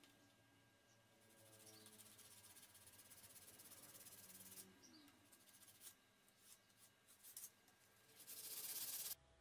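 Abrasive paper rubbed by hand along a wooden hammer handle, a faint scratchy hiss. It builds over a few seconds, breaks into short strokes, then comes back louder near the end and cuts off suddenly.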